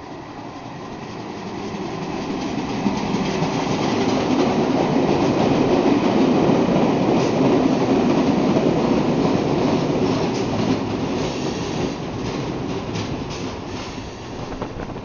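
London Underground Metropolitan line train running in alongside the platform, its wheels rumbling and clattering over the rail joints. It grows louder to a peak midway as the carriages pass close by, then eases off, with a series of sharp clicks near the end.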